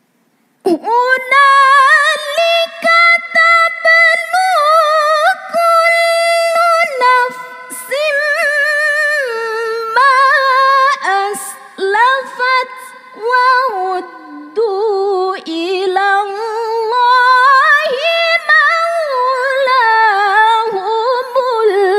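A woman reciting the Quran in the melodic tilawah style: long, high held notes with rapid ornamental turns and wavering, broken by short breaths, starting about a second in.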